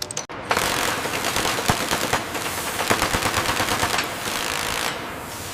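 A pneumatic tool hammering in a rapid rattle, after a few sharp clicks at the start, torquing a clamp. The rattle eases off after about four seconds.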